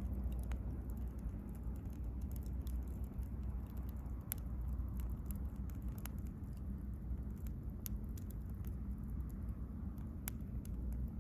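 Wood bonfire crackling, with scattered irregular pops over a low steady rumble. Two sharper pops come about four seconds in and again near the end.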